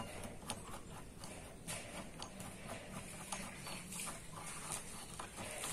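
Faint, scattered light clicks and taps as an electric hand planer and its aluminium blade-setting gauge are handled during a blade change.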